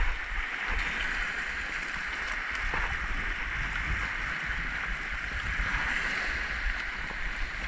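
Small sea waves washing over low shoreline rocks: a steady hiss of surf with a low rumble beneath.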